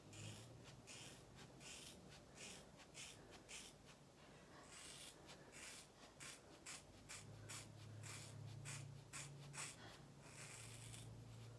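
Craft scissors snipping through a thick ponytail of long hair: a faint run of short, crisp cuts, about two or three a second.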